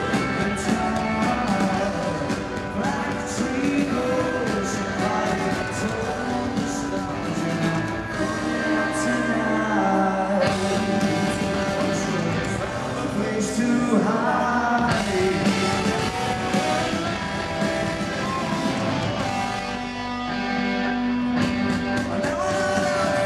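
Rock band playing live: electric guitars, bass guitar and drum kit, with a sung lead vocal over them.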